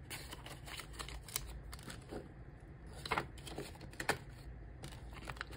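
Paper banknotes rustling and crinkling as they are counted and slipped into a clear plastic binder envelope, with scattered short snaps.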